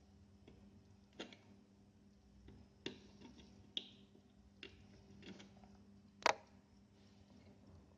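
Scattered sharp clicks and light knocks, about six of them at uneven gaps with the loudest near the end, from a stock Intel CPU cooler being fitted and its push pins pressed onto the motherboard. A faint steady low hum runs underneath.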